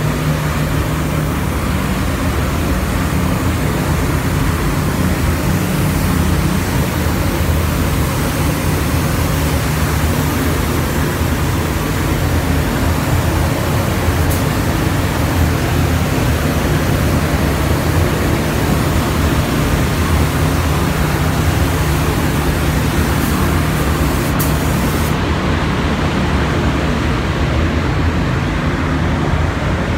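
Paint spray booth ventilation fans running: a steady, loud rush of air over a low hum. The highest part of the hiss falls away near the end.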